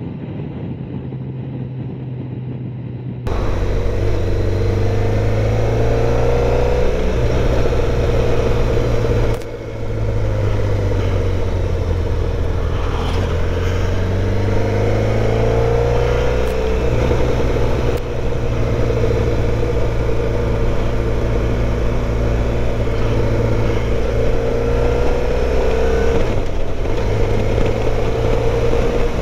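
Motorcycle engine under way on the road, its revs climbing and dropping back several times as it pulls through the gears, with a steady rush of wind noise over it.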